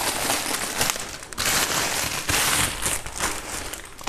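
Clear polythene wrapping crinkling and rustling as hands unwrap it from a ceiling fan's motor housing, in uneven loud stretches that die down near the end.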